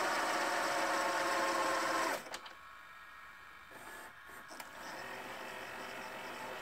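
Philips VR550 VHS deck's reel drive whirring with a steady whine as it winds the cassette at fast-forward/rewind speed, cutting off suddenly about two seconds in. A few mechanical clicks from the tape mechanism follow, then a quieter steady hum.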